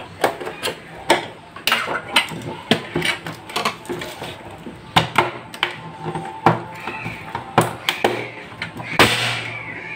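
Plastic back cover of a Samsung monitor being pried and lifted off, its snap clips releasing in an irregular run of sharp clicks and cracks. A longer, louder clatter comes about nine seconds in.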